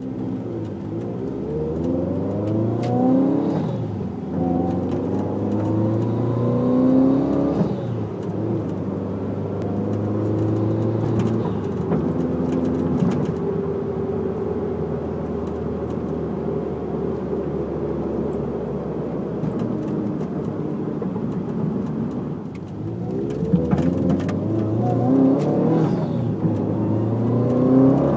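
Car driving, the engine note climbing as it accelerates through a gear change near the start and again near the end, with steady running between. Scattered sharp clicks or rattles sound throughout, the abnormal noise from the car's rear panel.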